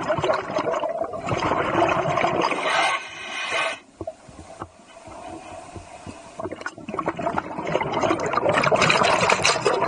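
Scuba diver's exhaled bubbles gurgling and rushing from the breathing regulator underwater, heard up close. Two long stretches of bubbling, with a quieter gap from about four to seven seconds in.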